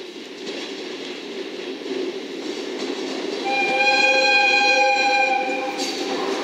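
JR West EF65 electric locomotive running light toward the listener, its running and rail noise growing steadily louder. About three and a half seconds in it sounds one long steady blast on its horn, lasting about two and a half seconds.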